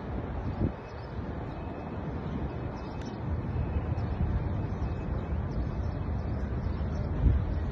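Wind buffeting the microphone: a steady low rumble with stronger gusts about a second in and again near the end.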